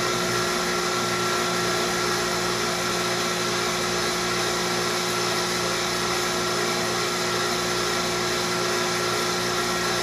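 A 7 CFM vacuum pump running steadily: an even motor hum with several constant tones. It is pulling a deep vacuum on a jar of water, boiling it off to chill it toward freezing.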